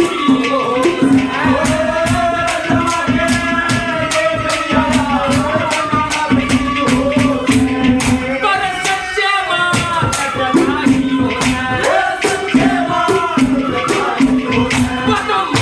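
Haryanvi ragni folk music: a melody over a steady low drone, driven by a fast, even percussion beat with jingling.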